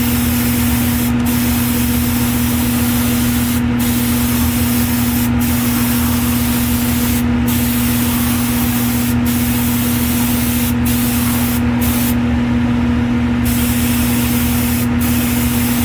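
Airbrush spraying acrylic paint onto a plastic model car body: a steady hiss of air and paint, broken by about ten short pauses as the trigger is let off, the longest about two-thirds of the way through. The nozzle is freshly cleaned and spraying well. A steady low motor hum runs underneath.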